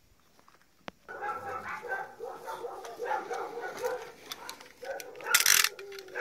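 Dogs whining and yelping eagerly in many short calls, starting about a second in. Near the end a short loud rip as a box cutter slits the parcel's packing tape.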